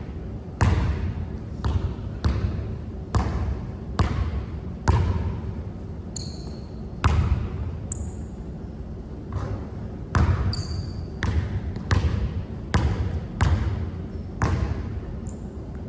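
Basketball being dribbled on a hard court, a sharp bounce about every second, each with a short ringing tail. A few short high squeaks come in around the middle.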